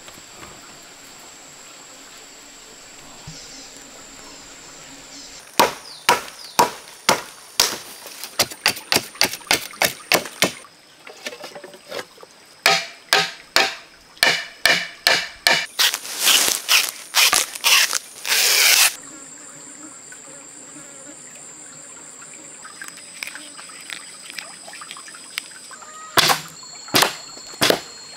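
Runs of sharp knocks as bamboo is cut and worked, two to three strikes a second, with a few more near the end. Under them runs a steady high insect drone.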